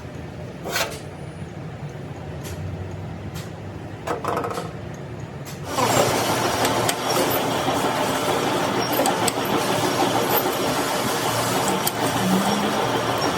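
A few light knocks, then about six seconds in a loud, steady machine noise starts up and keeps running.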